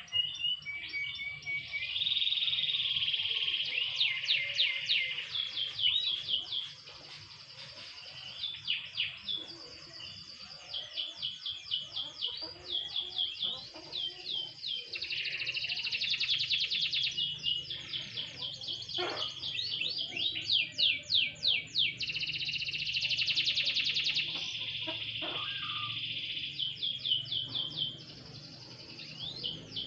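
Domestic canary singing a long, varied song of fast trills and sustained rolling phrases, with short lulls about seven seconds in and again near the end.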